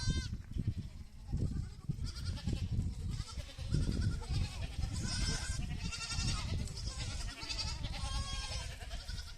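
Goats bleating again and again, several calls with a quavering, wavering pitch, over a low rumbling noise.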